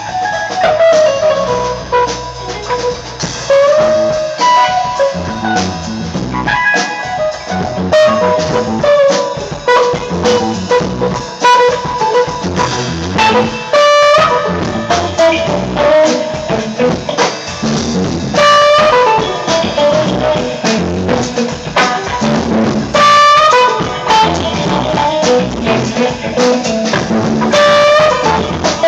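Live band jam: electric guitar and drum kit playing together, with a held melodic line and cymbal crashes every few seconds in the second half.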